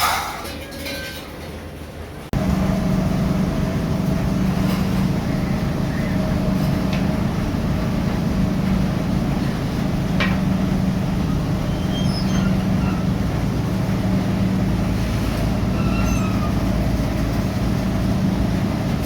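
Steady machine hum with a strong low tone, starting abruptly about two seconds in; before it, a few light metal clinks.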